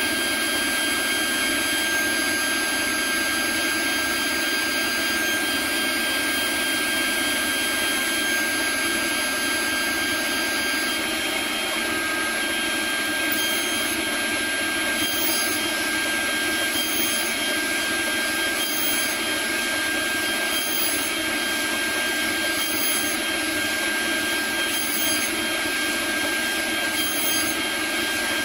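CNC router spindle running steadily with a high whine while its end mill cuts Delrin plastic, with a steady cutting noise. From about halfway through, a faint high hiss recurs about every two seconds.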